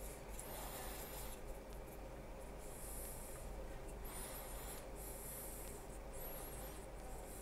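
Paintbrush bristles scratching over a plastic scale-model part, working an enamel wash into its recesses. The scratchy brush strokes come in short passes, about five in all, one every second or so.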